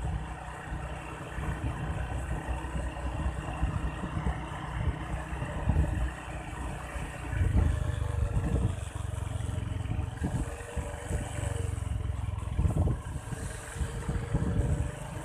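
An engine running, its pitch rising and falling now and then, over a heavy, uneven low rumble.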